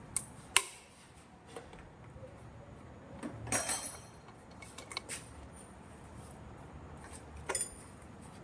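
Scattered sharp metallic clinks of hand tools or engine parts being handled, with a short clatter about three and a half seconds in and another near the end.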